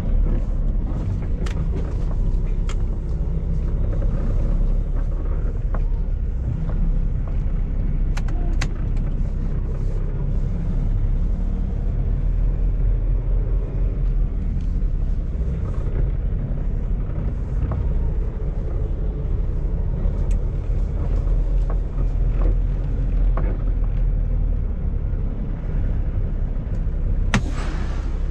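Peterbilt semi-truck's diesel engine running at low speed as the truck manoeuvres slowly, heard from inside the cab as a steady low drone. A brief sharp noise comes near the end.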